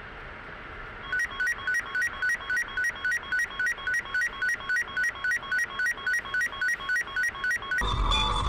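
Road noise, then from about a second in a fast, even electronic beeping, about three beeps a second. It stops near the end, where music with a heavy low beat comes in.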